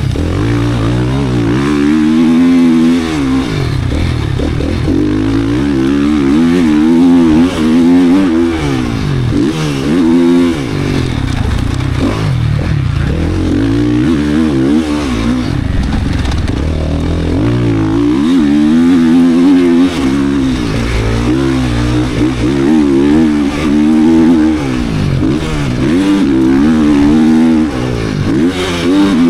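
GasGas 450 motocross bike with a built race engine, its single-cylinder four-stroke ridden hard. The revs climb and drop over and over, every few seconds, as the throttle is opened and shut.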